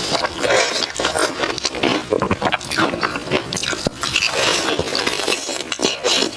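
Close-miked mouth sounds of biting and chewing crispy fried banana in a glutinous-rice coating: a constant run of crunches and crackles with wet chewing.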